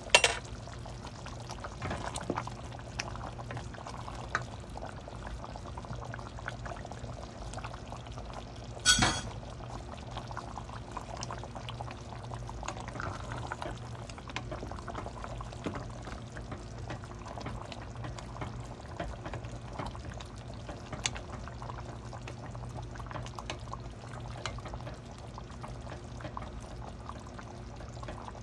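Chicken and sauce simmering in a pan, bubbling and crackling steadily over a low hum. A single sharp metallic clink comes about nine seconds in.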